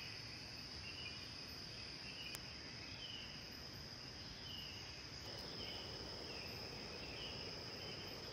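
Faint forest insect chorus: crickets keep up a steady high-pitched trill, with a short chirp repeating a little faster than once a second.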